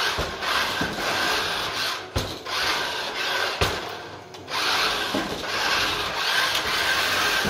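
Toy RC monster truck's electric motor and gearbox whining as its big rubber tyres scrub and rub across a hardwood floor, in three runs with short breaks about two seconds and about four and a half seconds in.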